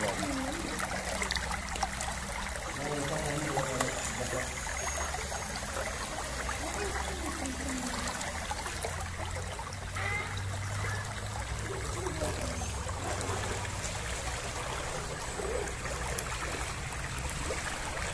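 Shallow stream flowing and trickling steadily over rocks, with a low steady hum underneath.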